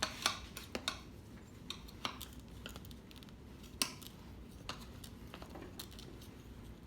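Metal tire spoons clicking and knocking against a dirt bike wheel rim while the tire bead is levered off: a run of irregular sharp clinks, the loudest just after the start and about four seconds in.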